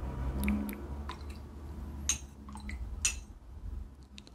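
Metal spoon clinking and scraping in a bowl of soup, with small wet liquid sounds and a few sharp clicks, the two loudest about two and three seconds in.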